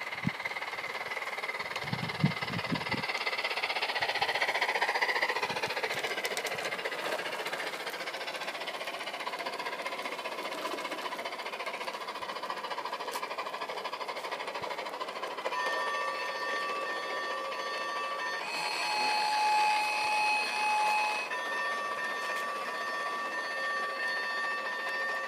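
Battery-powered garden-railway Mallet locomotive pulling a train of coaches, with a steady rolling noise from wheels on the track. About 15 seconds in, a set of steady high tones starts, and it changes pitch abruptly twice, about three seconds apart.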